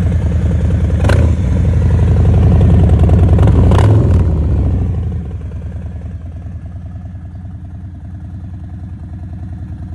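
Harley-Davidson Low Rider S V-twin engine running loud, with two sharp cracks about a second in and near four seconds. After about five seconds it drops back to quieter, steady running.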